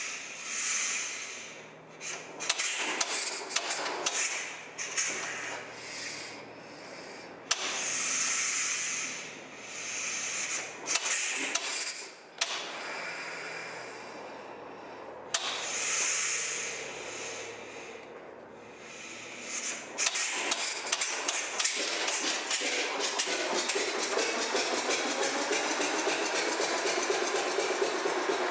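Early J. I. Case tractor's cross-mounted four-cylinder gasoline engine being turned over by hand at its flywheel, with a wave of hissing at each turn and a few sharp clicks. About two-thirds through, it catches and runs with rapid, even firing that picks up speed near the end.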